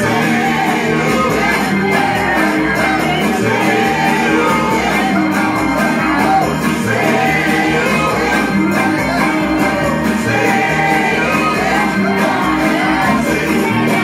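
A group of amateur voices singing along loudly and raggedly into microphones over loud music, with some shouting mixed in, as the singers stumble over a song they don't fully know.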